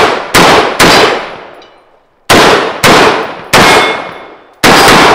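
Unsuppressed short-barreled Desert Tech bullpup rifle firing six shots, two quick ones near the start and four more after a short pause, each loud crack trailing off with a metallic ring.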